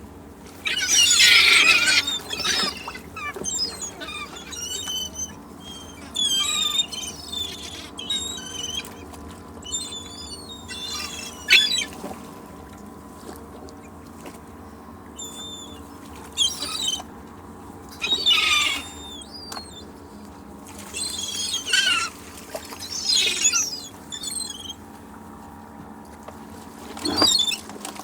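Seagulls calling in repeated bouts of cries a few seconds apart, over a faint steady background.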